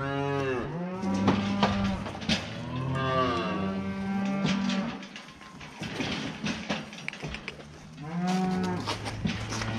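Cattle mooing in a handling yard: several long, drawn-out moos, one right at the start, another about three seconds in and a third near the end, with a quieter gap in between and a few short knocks.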